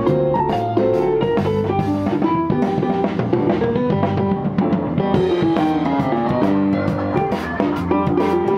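Live jazz trio playing: electric bass guitar, digital piano and drum kit, with steady drum and cymbal strokes under bass and piano lines.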